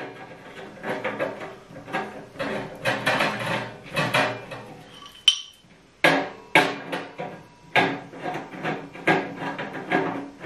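Metal leg rods being fitted to a portable metal wood stove: irregular clanks and rattles of metal on metal, with the stove body ringing briefly after the harder knocks.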